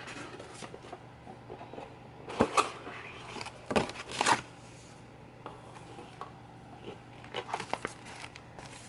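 Cardboard box and plastic packaging being handled: the box lid is lifted off with rustles and knocks, then a frosted plastic zip pouch rustles and crinkles as it is lifted out. A low steady hum runs underneath.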